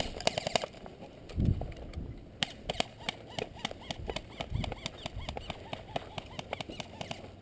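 Footsteps crunching on a dirt and gravel trail, with sharp irregular clicks and rattles from carried gear and a couple of dull thumps.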